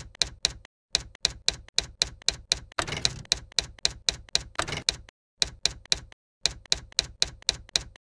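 Typewriter keys struck one at a time, about four a second, with a few short pauses and two brief stretches of heavier clatter in the middle. The keystrokes stop shortly before the end.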